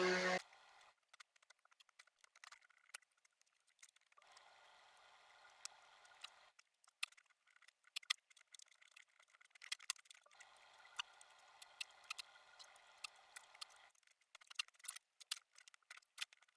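Faint, scattered clicks and light clattering of small hard objects, with two stretches of soft hiss, about four and ten seconds in.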